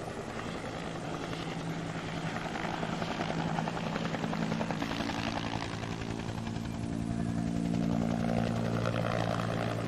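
An engine drones steadily, with a low hum and a fast rhythmic pulsing, growing a little louder near the end.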